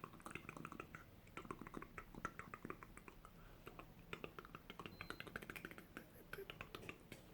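Quiet, rapid, irregular close-up ASMR clicking, several soft clicks a second.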